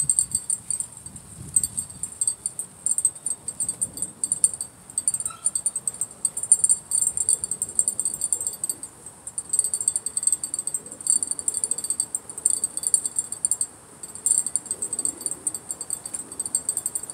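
Insects buzzing in a fast, high-pitched pulsing trill that stops briefly now and then, over faint wind rumble.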